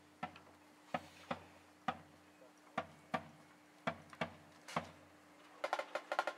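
Sharp wooden clicks of drumsticks, roughly one a second and some in pairs, then a quick uneven run of clicks near the end.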